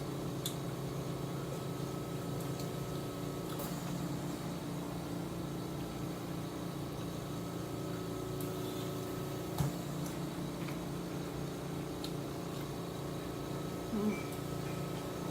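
Steady machine hum, likely a household appliance or fan, with a few faint clicks and a small knock about halfway through.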